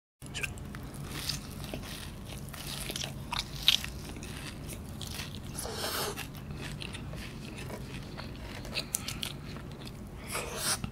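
Close-up eating of cheese kunafa: chewing and crunching of the crisp shredded-pastry crust with wet mouth sounds, and crackling as pieces are pulled apart by hand. One sharp crunch stands out a little before four seconds in.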